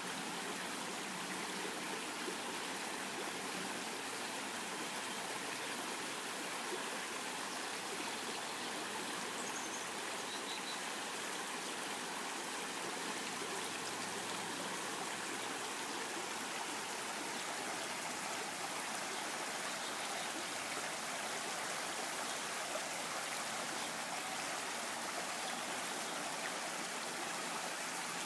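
Shallow creek water running over stones in a riffle, a steady, even rush of flowing water.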